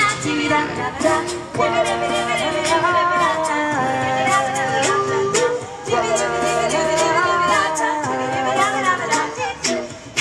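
A small a cappella vocal group of tenor, soprano and mezzo singing in harmony over a beatboxer's steady percussion of short, regular clicks.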